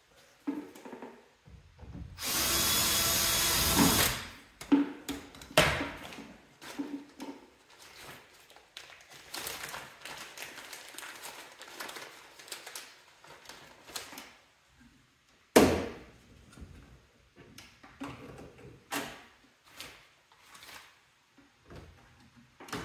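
Power drill running for about two seconds near the start, then scattered clicks, knocks and rustling as parts are handled, with one sharp knock about two-thirds of the way through.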